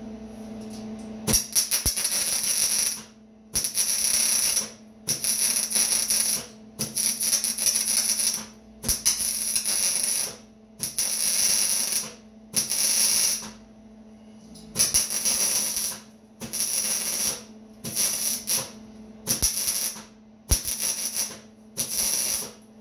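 Electric arc welder laying a run of short stitch welds on steel framing: about a dozen crackling bursts of one to one and a half seconds each, with brief pauses between, over a steady low hum.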